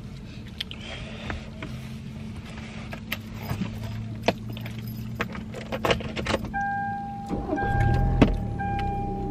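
Inside a car cabin, a steady low hum runs under scattered small clicks and scrapes of a spoon on a plastic cup as food is eaten. About two-thirds in, a high steady tone starts, broken on and off.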